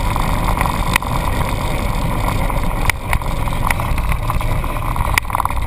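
A vehicle's engine running as it drives slowly over dirt, with steady wind and road noise and several sharp knocks, about a second in, around three seconds in and about five seconds in.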